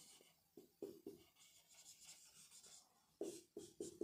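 Felt-tip marker writing on a whiteboard: faint scratchy rubbing with a run of short, separate strokes, a cluster about half a second to a second in and another near the end.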